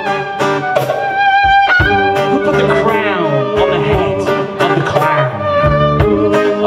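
Live folk-rock band playing, with the fiddle leading over acoustic guitar, bass guitar and a drum kit.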